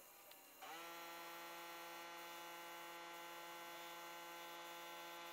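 A small electric motor starts up about a second in, its pitch rising briefly, then runs with a steady hum.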